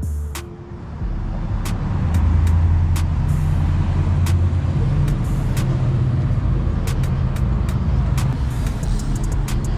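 Lowered square-body Chevy pickup's engine and exhaust driving past with a deep, steady rumble, loudest a couple of seconds in. Sharp clicks are scattered throughout.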